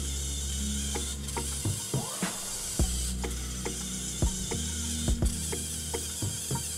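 Hobby servo motors (MG995) driving a small humanoid robot's arms: a steady low servo buzz with many irregular sharp clicks and short gear whirs as the joints move and stop.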